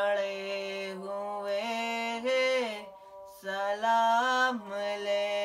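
A boy's voice singing an Urdu naat unaccompanied, drawing out long held notes that step up and down in pitch. There are two long phrases with a short breath between them about three seconds in.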